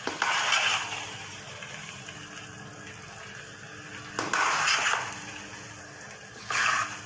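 A spatula stirs and scrapes thick, sticky halwa around a nonstick kadai in three separate strokes, one at the start, one about four seconds in and one near the end. A soft sizzle of the cooking halwa runs underneath.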